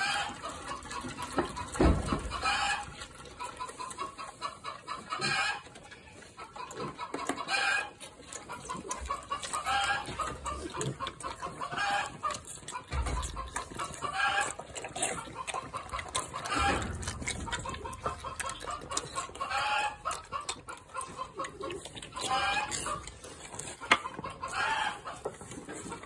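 Chickens clucking, a drawn-out call about every two to three seconds, over the wet slurping and jostling of piglets drinking milk from a pan.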